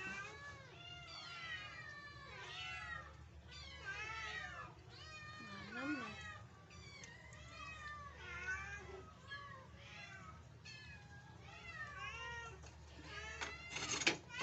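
Several cats meowing over and over, with calls overlapping at different pitches. Near the end there is a sharp knock.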